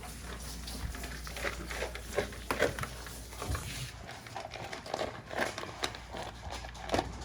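Dogs eating from their food bowls: irregular chewing, crunching and licking, with short clicks and crackles.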